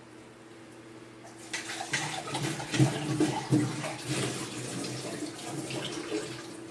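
Liquid splashing and gurgling, with many small pops. It starts about a second and a half in, is loudest around three seconds, and fades near the end, over a faint steady hum.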